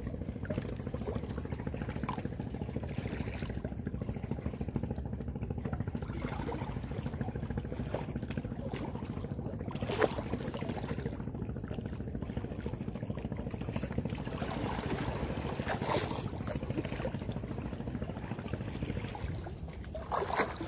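Seawater lapping and splashing among concrete breakwater blocks over a steady low rumble, with one sharp click about ten seconds in.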